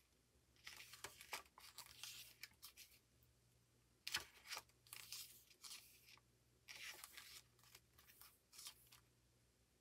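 Faint rustling of paper as pages of an album photo book are turned: a few short brushes, the sharpest about four seconds in.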